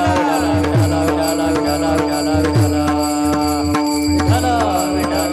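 Devotional kirtan music: tabla playing over a steady held drone note, with low bass strokes that bend in pitch and quick sharp clicks keeping time.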